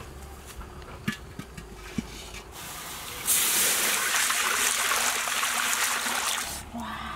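Water poured into a large metal wok that has been heated over a wood fire, hissing loudly as it turns to steam. The hiss starts about three seconds in and stops shortly before the end. A few light knocks come before it.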